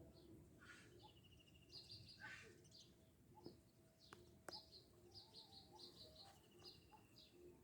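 Faint bird chirps, with a rapid trill heard twice, and a couple of sharp clicks about four seconds in.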